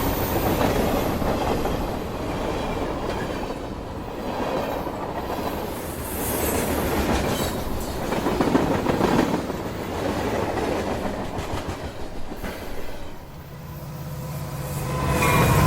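High-speed train running on rails: a steady noise of wheels and track that swells and eases in loudness, with no clear rhythm.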